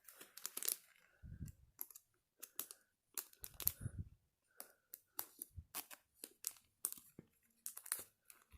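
Trading cards and crinkly plastic packaging being handled: a scatter of short crinkles and clicks, with two soft low thumps about a second and a half and nearly four seconds in.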